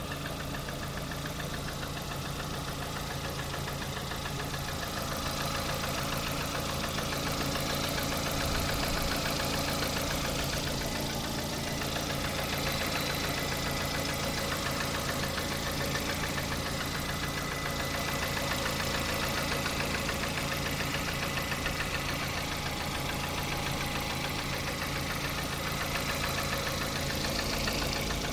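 Lada Kalina 1.4 16-valve four-cylinder engine running steadily at idle with a rapid, even knocking over it: strange knocks whose cause the owner does not know.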